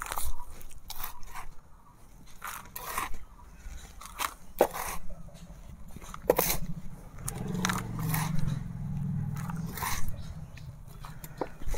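Hands scooping and pressing loose, crumbly soil into a plastic tub: irregular crunching and scraping strokes of earth. A low hum joins for a couple of seconds about two thirds of the way through.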